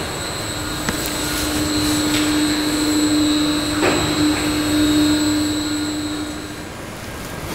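Electric drive of an end-over-end 200-litre drum mixer running as it slowly turns the drum: a steady hum with a thin high whine, swelling and easing, with a couple of light knocks. The hum cuts out about a second before the end.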